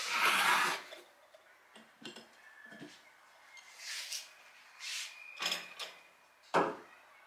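Ornaments being handled and set down on hard surfaces: a scraping rub in the first second, then a few light knocks and rustles, and a sharper knock near the end.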